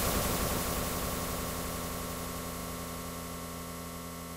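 A slowly fading hiss with a few steady ringing tones under it: the dying tail of a loud sound effect.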